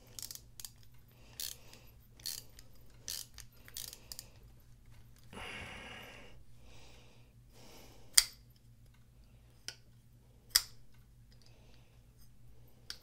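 Small screwdriver turning the pivot screw of a titanium frame-lock flipper knife, with soft clicks about once a second, then a brief rustle. The knife is then flipped open and shut, giving a few sharp metallic snaps, the loudest about eight seconds in.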